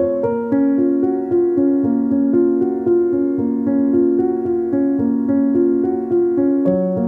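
Background music: a melody of evenly paced notes.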